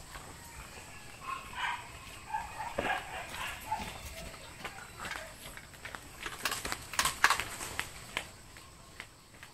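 An animal calls in a run of short pitched notes a couple of seconds in. Around seven seconds in come several sharp clicks and knocks from the air rifle and the pellet tin being handled on the concrete ledge, the loudest part.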